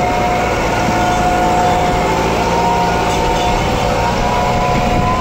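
Kubota tractor's diesel engine running hard under a heavy towing load, a steady loud rumble. Steady high whining tones sit over it, one slowly rising in pitch.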